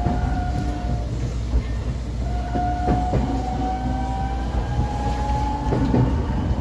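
125 series electric railcar running with its traction motor whine rising slowly as it pulls, over a steady rumble and a few knocks from the rails. The whine drops out about a second in and returns a second later: traction power cutting out as the wheels slip on rain-soaked rails.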